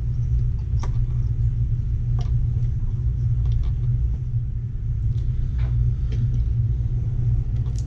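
Steady low rumble with a few faint, light clicks of plastic LEGO pieces being handled.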